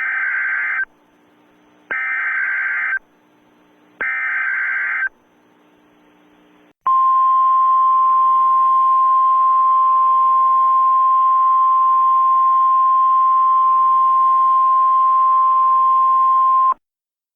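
Emergency Alert System activation: three data-header bursts of screeching digital tones, each about a second long and two seconds apart, with a faint hiss between them. After a short gap comes a single steady attention tone near 1 kHz, held for about ten seconds before it cuts off sharply. This is the alert sequence that comes before a spoken emergency message.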